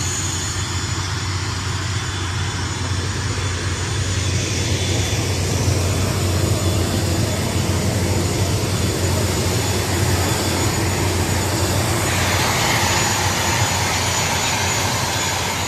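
Aircraft engine noise: a steady, loud running with a constant low hum, growing a little louder about four seconds in.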